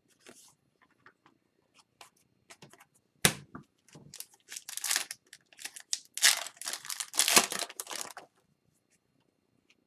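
Foil wrapper of a hockey card pack being torn open and crinkled in the hands, in a run of crackling rips over several seconds. Light handling clicks and a single sharp tap come before it.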